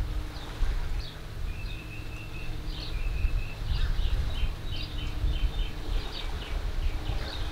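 Wind buffeting the microphone with an uneven low rumble. Over it, birds call in a run of short high chirps and brief held notes.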